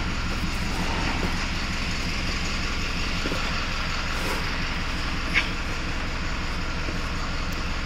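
A vehicle engine idling with a steady low rumble. There is a brief click about five seconds in.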